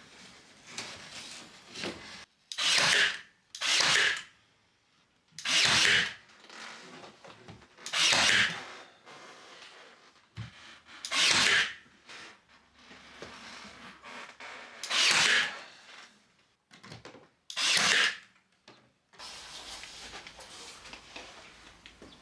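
Seven separate rubbing strokes of a hand tool on wooden scotia trim. Each stroke lasts about a second, with quiet gaps between them.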